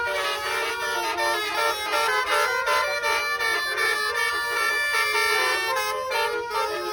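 Indonesian bus 'telolet' basuri horn, a set of musical air horns playing a tune, the pitch jumping between notes several times a second.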